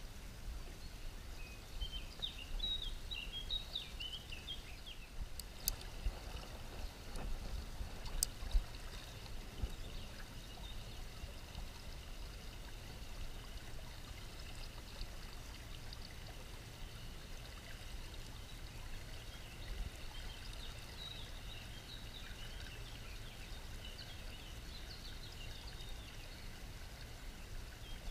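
Shallow river running over a stony riffle: a steady rush and trickle of water.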